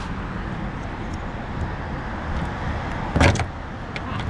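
Fiat 500's old exterior door handle being worked loose from the door: a sharp plastic-and-metal knock with a short rattle about three seconds in, then a couple of light clicks, over steady background noise.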